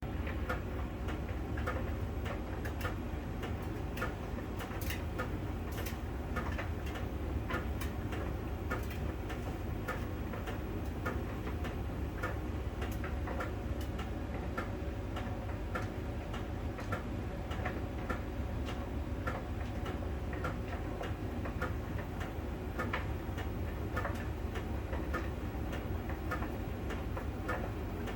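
Miele tumble dryer running mid-cycle, with repeated sharp ticks over the steady low hum of the turning drum. The ticking comes from a small round ball sensor rolling over the drum and clicking each time it passes a contact spot on the drum's outer surface, as a Miele technician explained.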